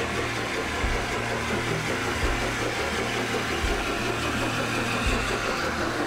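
Peppercorn A1 three-cylinder Pacific steam locomotive 60163 Tornado running steadily with a passenger train, coming closer and passing right by near the end, with the noise of its exhaust, wheels and rails.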